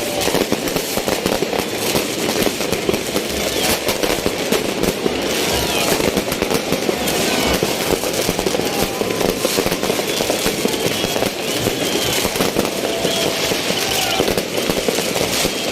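Fireworks and firecrackers going off in a dense, continuous crackle of rapid pops, with crowd voices mixed in.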